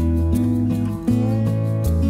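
Background music with strummed acoustic guitar over changing bass notes.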